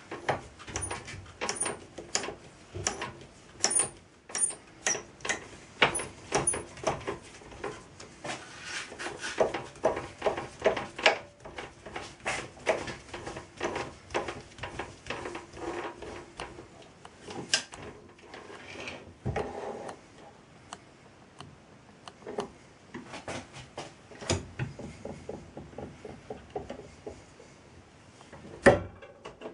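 Metal clicks and knocks from a lathe chuck being adjusted by hand, its jaws set and tightened on a workpiece. Quick clicks come several a second at first, grow sparser later, with one loud knock near the end.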